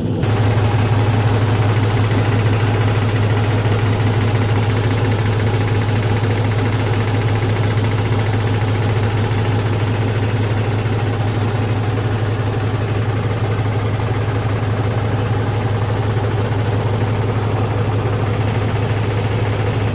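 Kenworth semi truck's diesel engine idling steadily with a deep, even hum, building up air pressure in the brake system.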